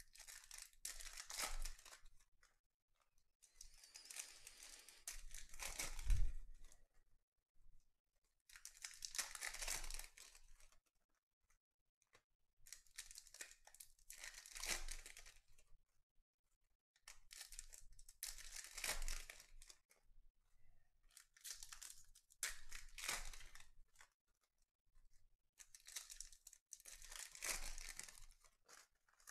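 Foil trading-card packs (Panini Certified basketball) being torn open and their wrappers crinkled, in repeated bursts of a second or two with short pauses between.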